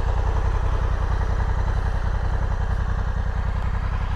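Honda Africa Twin's parallel-twin engine running steadily, a low, rapid, even pulsing.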